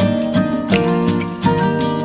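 Background music: plucked guitar with held notes and a regular beat.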